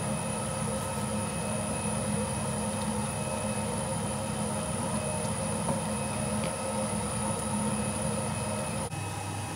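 Electric slime mixer's motor running steadily with a constant hum, churning a batch of slime; the sound dips briefly and changes character near the end.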